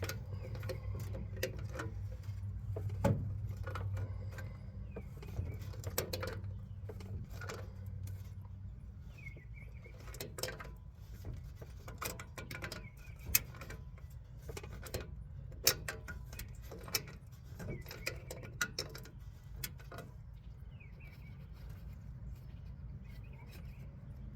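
Hand tools clicking and tapping against metal as a fitting is tightened onto a new car radiator: irregular sharp clicks, some louder knocks around the middle, over a steady low hum.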